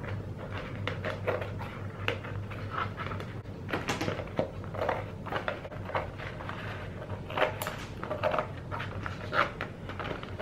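Scissors snipping and crunching through the stiff, glued glitter shell of a craft bowl, in irregular crackly cuts, over a low steady hum.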